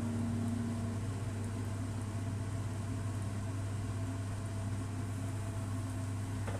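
A steady low electrical hum with a faint hiss underneath, and one light click near the end.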